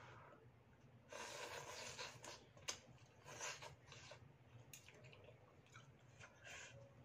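Soupy noodles being slurped in off a fork, several noisy slurps one after another, with a few sharp clicks between them.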